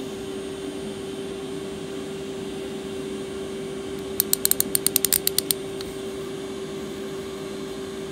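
Old Snap-on hand ratchet being worked: a quick run of about a dozen sharp clicks a little over four seconds in, over a steady hum.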